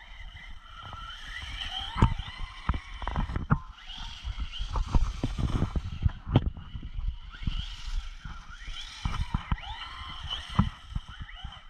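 Traxxas Raptor R RC truck's brushless electric motor whining, the pitch rising and falling again and again as the truck speeds up and slows, over irregular low thumps and rumble.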